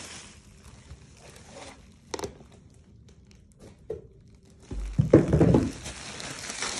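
Plastic bubble wrap crinkling and rustling as a wrapped package is handled, quieter in the middle with a few sharp clicks. About five seconds in there is a loud, muffled rustle close up.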